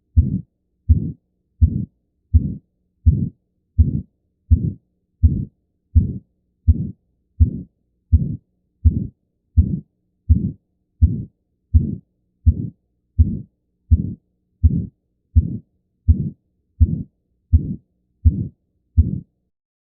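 Recorded heart sounds: a steady, regular heartbeat of about 80 beats a minute, each beat a short, deep thump.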